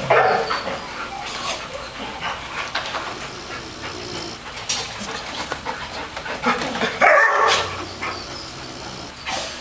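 Bulldog snoring in its sleep: a run of loud, noisy breaths at irregular intervals, the loudest at the start and about seven seconds in.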